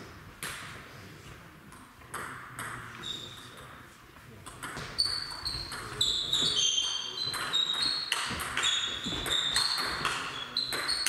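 Table tennis ball bouncing and being struck: a few isolated clicks early on, then from about five seconds in a fast rally of sharp hits off the bats and table, each with a short ringing ping.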